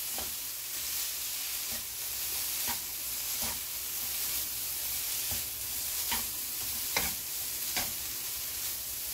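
Dried shredded squid in gochujang sauce sizzling over low heat in a nonstick wok as it is tossed with a spatula and chopsticks. Light taps of the utensils against the pan come every second or so.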